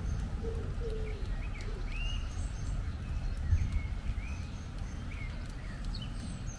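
Steady low rumble of wind and pouring rain, with a pigeon cooing a few times in the first two seconds and another bird giving short chirping calls through the rest.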